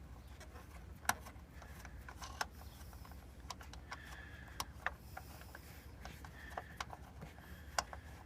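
Faint, scattered small metal clicks and ticks of door-hinge nuts with captive washers being spun off their studs by hand and handled, over a low steady hum.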